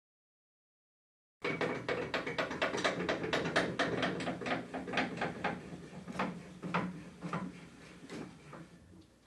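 Rapid mechanical clicking from a saw's blade-tilt adjustment as the blade is set to 45 degrees, starting after a second and a half of dead silence, then slowing and fading out near the end.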